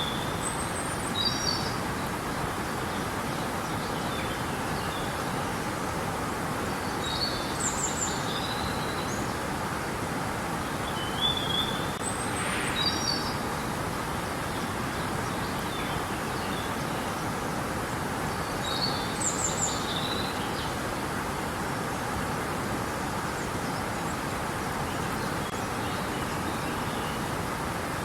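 Steady rushing of river water, with a songbird singing short chirping phrases every few seconds over it.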